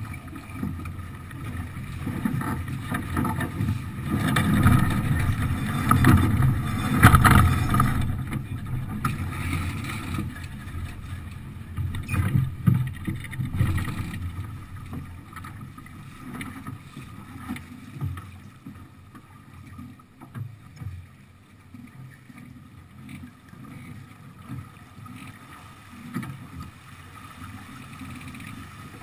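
Wind gusting on the camera's microphone and water rushing along the hull of a yacht under sail, strongest in the first half and easing after about fifteen seconds.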